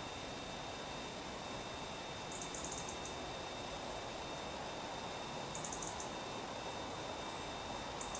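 Insect chirping: short bursts of about half a dozen rapid high clicks, repeating about every three seconds. Under them runs a steady hiss with a faint high whine.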